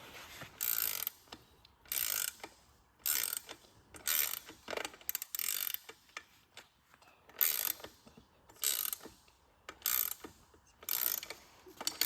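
A ratchet wrench clicking through short strokes, about ten of them at roughly one a second, as it tightens a nut on the bicycle wheel.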